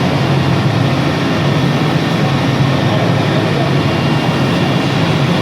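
CNC wood router running: a steady machine noise with a low hum underneath, holding an even level throughout.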